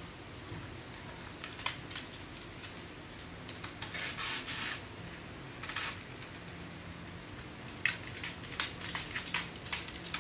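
Pembroke Welsh Corgi licking and nosing at its empty stainless steel food bowl, with short hissing scrapes. Near the end come a run of light clicks, its claws on the wooden floor as it walks off.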